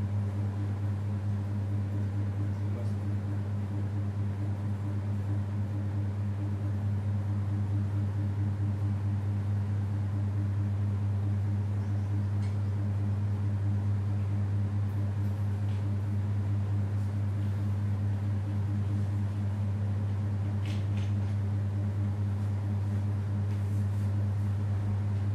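Steady low electrical hum, a deep drone with a few higher overtones over a faint hiss, unchanging throughout, with a few faint clicks.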